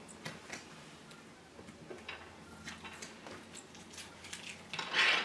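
Scattered light clicks and metallic ticks of small bolts and shutter hardware being handled by hand at the window frame, with a louder brief scrape near the end.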